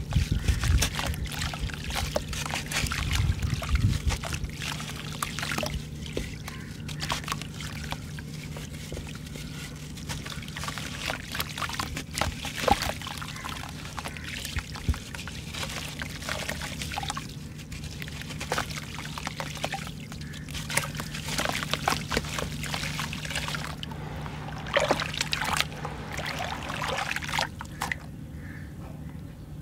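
Wet, gritty sandy block crumbled by hand, the grit and crumbs falling into a basin of muddy water with a continuous crackle of small grainy crunches and splashes, busier in bursts.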